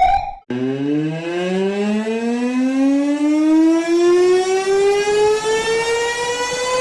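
An emergency warning siren winding up: after the previous alarm cuts off about half a second in, a new siren tone starts low and rises slowly and steadily in pitch.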